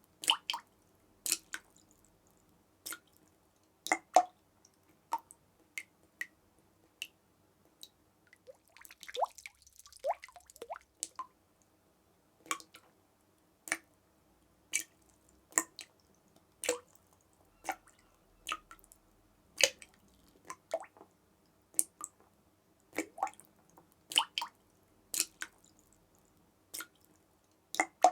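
Water drops dripping one at a time at an irregular pace of roughly one a second, each a short plink. There is a brief flurry of quicker drips about nine to ten seconds in.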